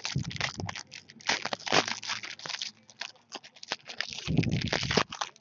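Foil wrapper of a Panini Brilliance basketball card pack being torn open and crinkled by hand: a run of crackling rustles and clicks. There is a duller handling noise about four seconds in.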